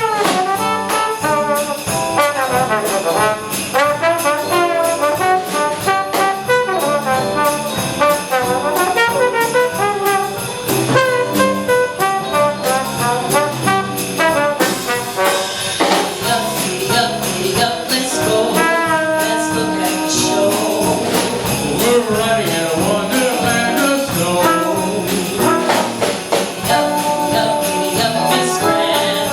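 Live jazz band playing an instrumental passage, with trumpets and trombones carrying the tune over sleigh bells jingling throughout.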